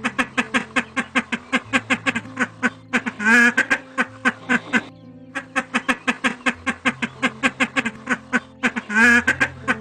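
Ducks quacking in a fast, even run of about seven quacks a second, with a short break partway through. Two louder, drawn-out quacks come about three and nine seconds in.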